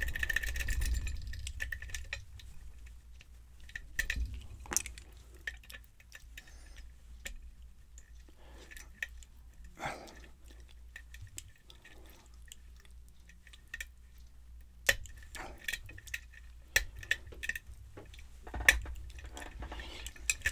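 Metal lock pick scraping and clicking against the pins inside a Yale pin-tumbler cylinder: scattered small clicks and scrapes, with a few sharper clicks.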